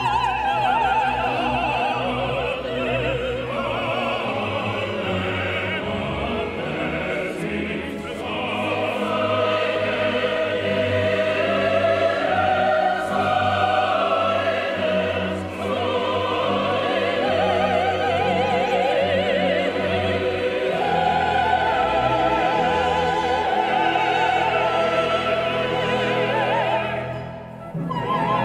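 A soprano soloist singing with wide vibrato over a symphony orchestra, then a choir singing in several parts with the orchestra. The music dips briefly near the end before the singing resumes.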